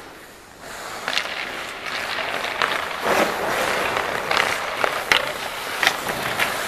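Ice skate blades scraping and carving on rink ice, the hiss swelling about a second in, with several sharp clacks of hockey sticks and puck on the ice.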